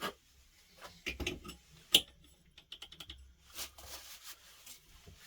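Light irregular clicks and taps from small clock parts being handled, with one sharp click about two seconds in.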